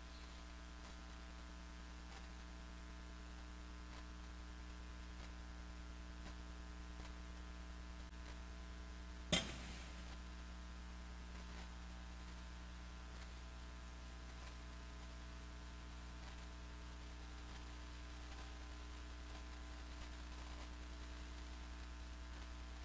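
Steady electrical mains hum with no other sound for long stretches, broken by a single sharp click about nine seconds in.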